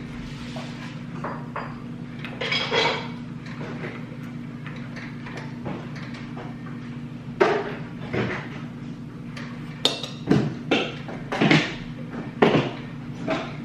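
Eating sounds: irregular short bursts of chewing and slurping of black bean noodles and fried pork, with utensils clicking on dishes, coming thicker in the second half.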